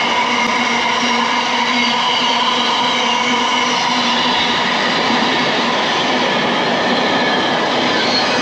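A train running along the tracks: a loud, steady noise with several held tones that barely change in pitch.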